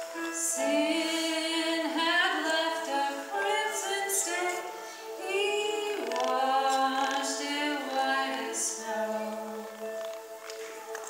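Mixed church choir of men and women singing a hymn, phrase by phrase, with held notes.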